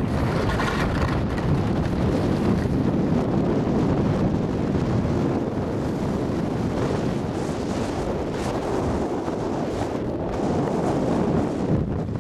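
Wind buffeting the microphone of a camera moving down a ski run, a loud, steady rush, mixed with the scrape of edges on hard-packed snow.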